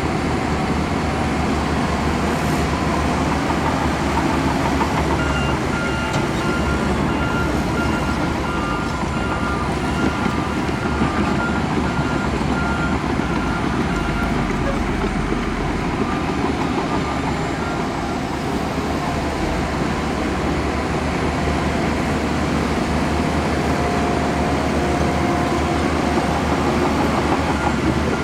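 Heavy diesel earthmoving machinery running steadily under load. A reversing alarm beeps repeatedly from about five seconds in until about halfway through.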